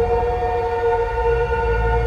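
Soma Labs Lyra-8 analog drone synthesizer sounding a sustained drone of several held, clashing tones, with a fast low throbbing underneath that grows louder about one and a half seconds in.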